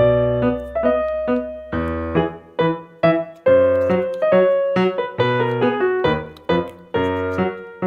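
Background music on piano or electric piano: a light melody of plucked-sounding notes over bass notes, each note struck and fading away.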